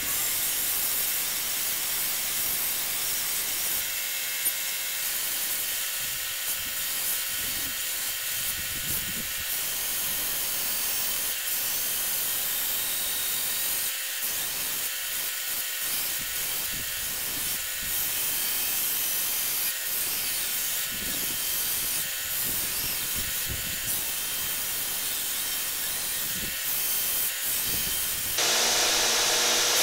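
Belt grinder shaping a wooden axe handle: a steady hiss of the abrasive belt rubbing on the wood over the running motor. It turns louder and brighter near the end.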